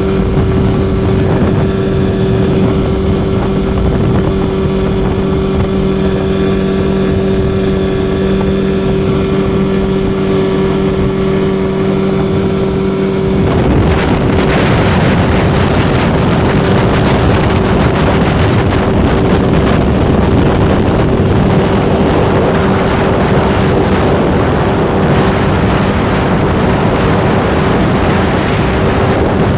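Suzuki 9.9 outboard motor running steadily at speed, a constant engine tone. About halfway through, a louder rush of water and wind joins it.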